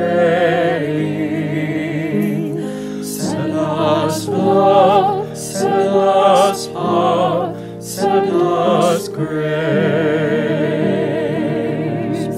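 A soprano, alto, tenor and bass quartet singing a hymn in parts with piano accompaniment, the voices with vibrato, in phrases separated by short breathing gaps.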